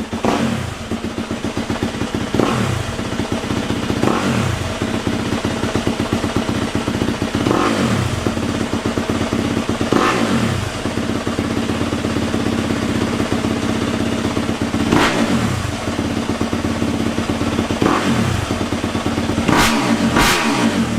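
Yamaha YZ250F's 250 cc four-stroke single idling while it warms up before an oil change, with a series of short throttle blips that rise and fall back to idle every few seconds.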